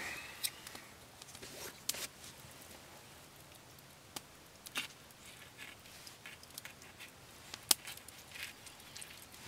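An orange being peeled by hand: faint, scattered small snaps and squelches as the rind is torn, with a sharper click late on.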